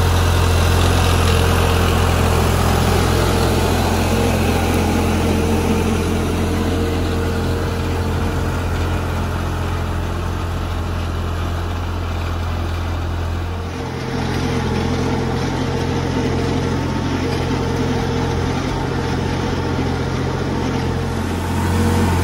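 New Holland 5620 TX Plus tractor's diesel engine running steadily under load while pulling a duck foot plough through dry soil. The engine note changes abruptly a little past halfway through.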